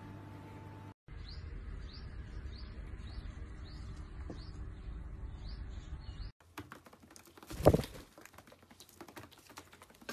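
A small bird chirping again and again, about twice a second, in short rising chirps over a steady low rumble; this stops abruptly and gives way to light clicking and tapping with one louder thump about three-quarters of the way through.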